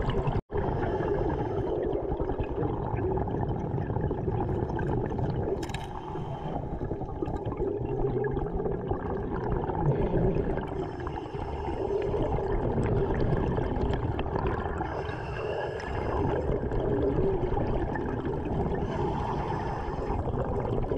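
Underwater sound of a scuba diver breathing through a regulator: a steady low rumble and gurgle of exhaled bubbles, with a faint hiss of breath about every four seconds. The sound drops out briefly about half a second in.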